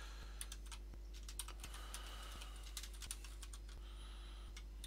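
Typing on a computer keyboard: a run of irregular, quick key clicks, over a faint steady low hum.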